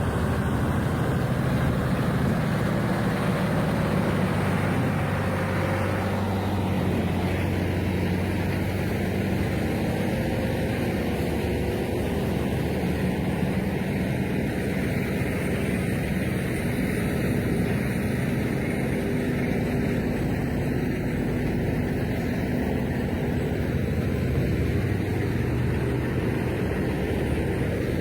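Heavy wood-processing machinery, a Morbark chipper or grinder, running steadily with a continuous low engine drone. About six seconds in, its higher-pitched noise drops back and the low drone carries on.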